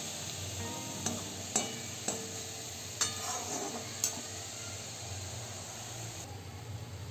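Cauliflower and potato pieces sizzling in a black wok while a perforated steel spatula stirs them. The spatula clicks against the pan about five times in the first four seconds.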